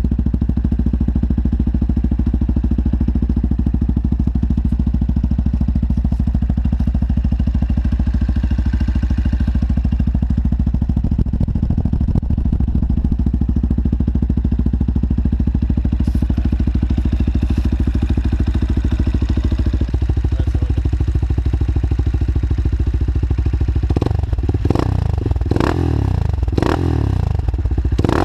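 Husqvarna 630 supermoto's single-cylinder four-stroke engine idling steadily through twin Arrow titanium silencers, then blipped in several quick revs near the end.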